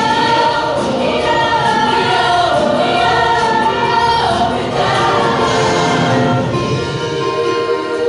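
A women's show choir singing in harmony over instrumental accompaniment. About two-thirds of the way through, one steady note is held under the voices.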